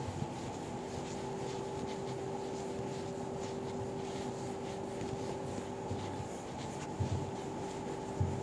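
Whiteboard eraser rubbed across the board in repeated strokes, wiping off marker writing, over a steady low hum. A few short low knocks come near the end.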